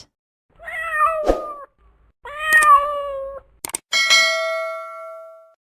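Domestic cat meowing twice in long, drawn-out calls, followed by a sharp metallic ding that rings on and fades away.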